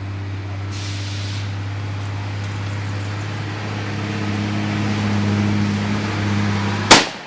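A truck's engine running with a steady low hum, growing louder as it comes closer. Near the end, a single loud shotgun shot.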